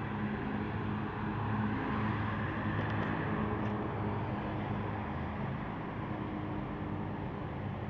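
A car running: a steady low hum with an even wash of noise.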